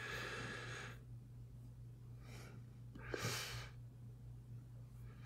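Faint breathing: three soft breaths, the clearest about three seconds in, over a steady low electrical hum.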